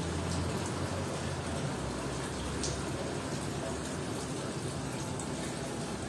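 Water running steadily from a stone fountain, a continuous splashing rush.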